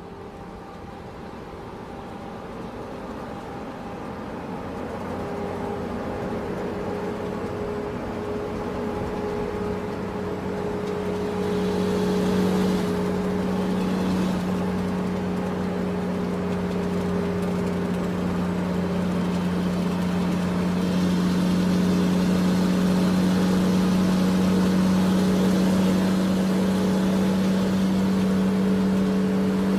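A steady motor hum that grows gradually louder, its pitch held almost level.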